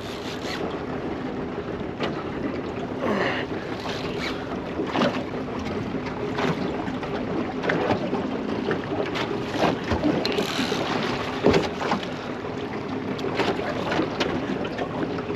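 Boat under way at trolling speed: the outboard motor hums steadily while water slaps against the hull, with wind on the microphone and a few short knocks and splashes.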